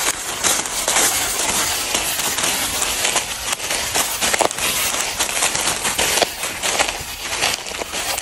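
Footsteps crunching and crackling through a thick layer of dry fallen rubber-tree leaves.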